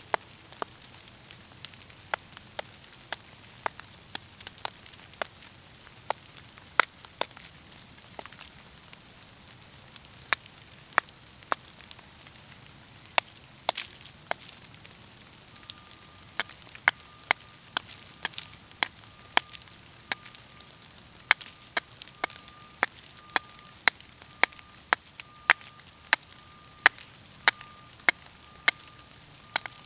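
Hand-held hammerstone striking a rock: sharp, irregular clicking knocks, roughly one or two a second, coming a little faster in the second half.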